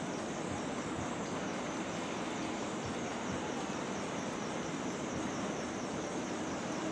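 Steady city street noise: a continuous hum of traffic and crowd with no distinct single sound standing out.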